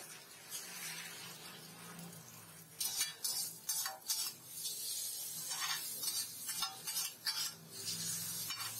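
Two flat metal spatulas scraping and clanking on a flat iron griddle (tawa) as fried noodles with egg are tossed and chopped. It is quieter for the first few seconds, then comes a quick, uneven run of sharp metal strikes from about three seconds in.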